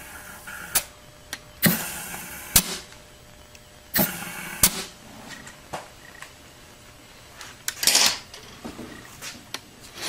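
Compressed air blown from a rubber-tipped nozzle into an automatic transmission's clutch apply passages, in about three short hissing bursts with sharp clicks, about two, four and eight seconds in. This is an air check of the clutch packs for leaks.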